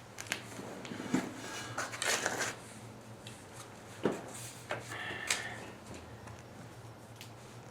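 Faint, scattered crackles and pops from a wood fire, with a few short rustles and knocks mixed in.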